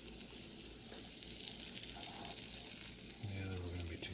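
Breaded pork chops sizzling quietly in a hot cast-iron skillet just out of the oven, a steady fine crackle of hot fat. A brief low voice hums or murmurs near the end.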